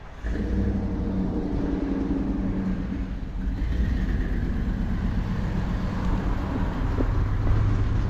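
A car engine idling steadily, a low running hum that holds one pitch and comes in abruptly near the start.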